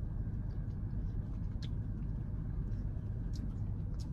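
Steady low rumble of a car idling, heard from inside the cabin, with a few faint soft clicks from chewing.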